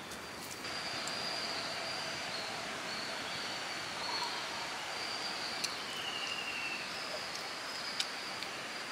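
Woodland ambience: a steady high insect buzz runs throughout. A short bird call comes about six seconds in, and a few faint clicks are heard.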